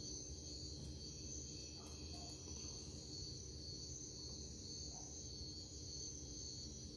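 Quiet background: a steady high-pitched whine over a low hum, with a few faint soft ticks.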